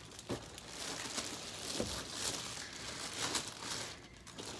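Clear plastic wrapping crinkling and rustling as it is handled, irregular and crackly.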